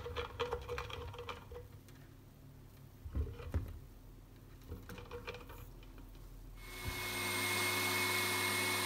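Glass blender jar handled with light clinks and knocks, then about six and a half seconds in an electric blender's motor starts and runs steadily, giving sesame seeds and oil a final spin into smooth tahini.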